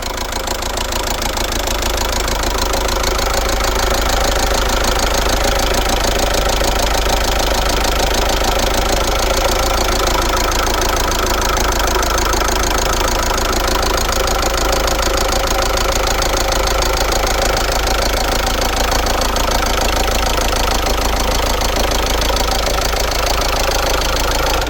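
Car engine idling steadily after a cold start, with a fast continuous ticking from the top end: oil has not yet risen to the valvetrain.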